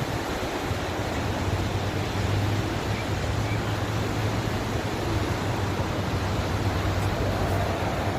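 Steady rushing noise with a low hum underneath, even throughout.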